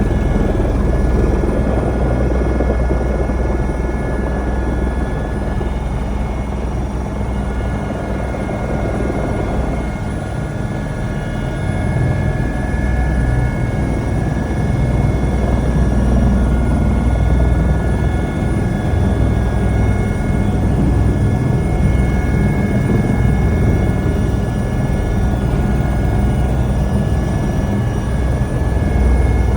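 Helicopter running steadily, a dense low rotor and engine rumble with a steady high whine over it.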